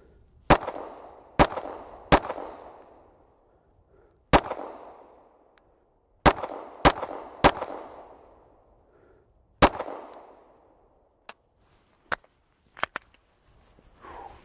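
Glock pistol firing eight shots at an uneven pace over about nine seconds during a timed drill, each shot trailed by an echo. A few much quieter sharp clicks follow near the end.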